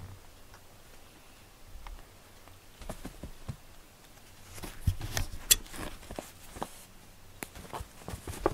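A cat pouncing and scrabbling on a quilted fabric mat while playing with a string toy: scattered soft rustles, pats and scratches, busiest about halfway through.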